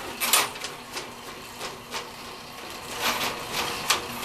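Powered sewer snake (drain auger) running, with a steady motor hum and irregular clicks and rattles from the spinning cable as it feeds through the drain pipe.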